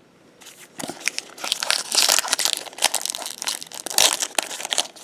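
Crinkly wrapper of a trading-card pack being crumpled and torn open, an irregular run of crackling that starts about half a second in.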